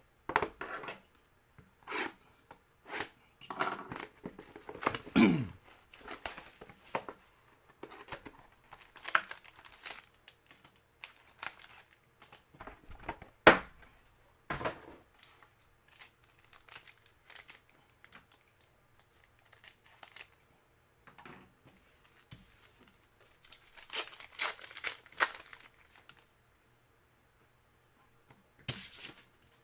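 Trading card pack wrappers being torn open and crinkled while cards are handled: a long run of short rustles and tears, with one sharp click a little before the middle.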